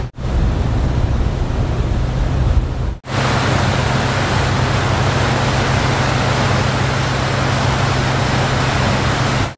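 Steady low engine drone under a loud, even rushing noise, dropping out briefly about three seconds in where two clips are joined.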